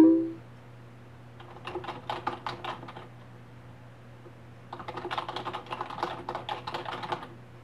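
A short chime as a chat message arrives, then typing on a computer keyboard: rapid key clicks in two runs, about a second and a half in and again from about five seconds in, over a low steady hum.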